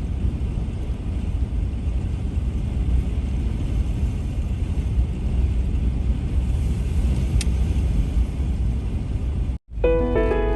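Car road noise: a steady low rumble while driving. It cuts off suddenly about nine and a half seconds in, and soft piano music begins.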